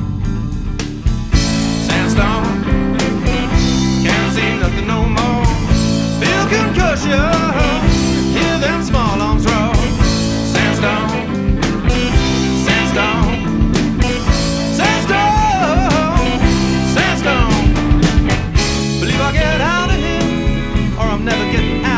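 Background blues-rock music with a steady beat: drums, bass and electric guitar, in a stretch without sung words.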